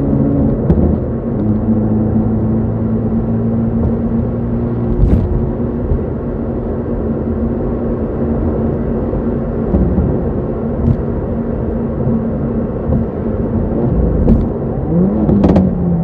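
Hyundai Veloster N's turbocharged four-cylinder engine and exhaust heard from inside the cabin while driving, a steady drone held at high revs with a few short clicks. The pitch shifts about half a second in and rises as the engine revs up near the end.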